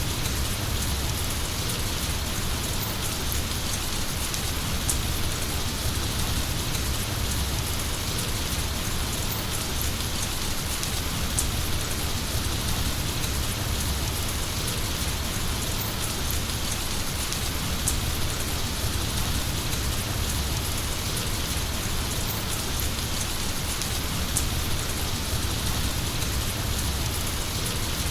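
Heavy rain falling steadily: a continuous, even hiss of drops with a low rumble underneath.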